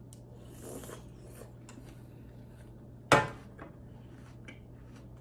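Tableware sounds during eating: a bowl and spoon knock together once, sharply, about three seconds in, with a few faint clicks and a brief rustle earlier, over a steady low hum.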